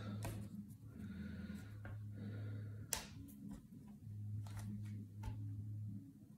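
Faint clicks and taps of hands working at a wooden table while portioning bread dough, with one sharper click about three seconds in, over a low hum that comes and goes.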